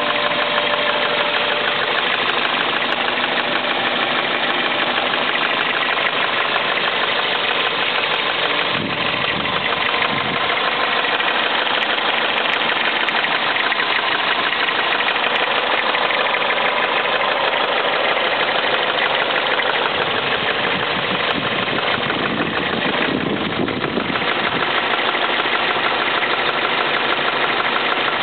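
2000 Toyota Celica GT's 1.8-litre four-cylinder engine idling steadily with a fast, continuous ticking knock. This is a noise that appears once the engine is hot; the owner believes it is rod knock, while the dealer put it down to the fuel injectors.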